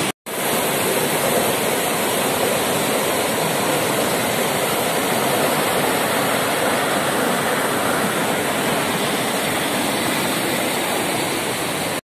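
White water rushing and splashing over rocks in a fast stream below a waterfall: a steady, loud, even rush. The audio drops out for a moment just after the start.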